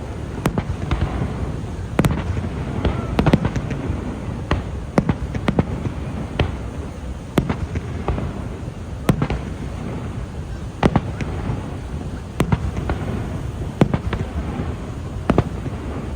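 Fireworks going off: sharp bangs and pops, irregularly spaced at roughly one or two a second, over a continuous low rumble, with a faint rising whistle about two and a half seconds in.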